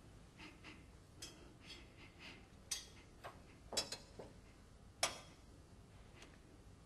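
A handful of short, sharp clicks and rustles, the loudest about three, four and five seconds in, with faint breathing between them.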